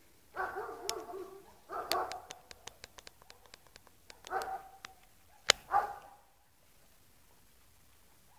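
Siberian husky gnawing a large raw bone, giving four short pitched, wavering vocal sounds and a run of sharp clicks of teeth on bone, the loudest click about five and a half seconds in.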